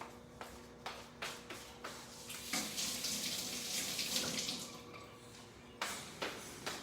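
Kitchen tap running for about two and a half seconds, starting a couple of seconds in, with light clicks and knocks of kitchen items before and after it.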